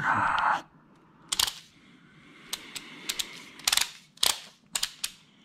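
Click-type torque wrench tightening the front brake caliper bracket bolts to 65 ft-lb: about eight sharp, irregularly spaced metallic clicks, after a brief rustle at the start.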